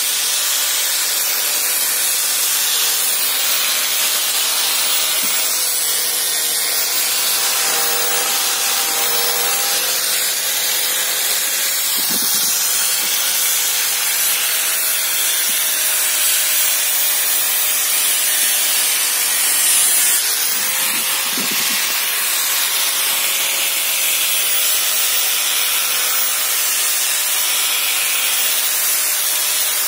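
Handheld angle grinder with a sanding disc running steadily against wood, sanding it: a continuous loud hiss with a faint motor hum beneath.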